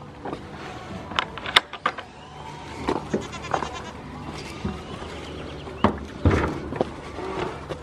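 Goats bleating several times, with a couple of sharp clicks a little after a second in.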